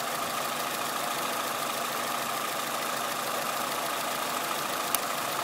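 Peugeot 306 engine idling steadily, with one sharp snap near the end: the misfire that the owner puts down to a spark plug arcing inside the coil pack.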